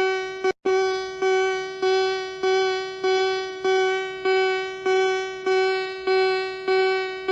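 Mock emergency alert alarm: a single pitched tone repeating about one and a half times a second, each beep fading away before the next, with a brief cut-out about half a second in.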